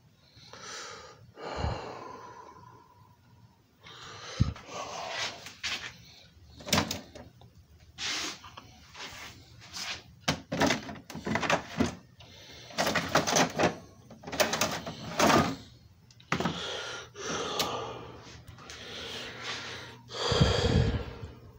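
Handling noises from a CED videodisc caddy being handled and loaded into the player: a string of clicks, knocks and rustles, and a heavier clunk near the end.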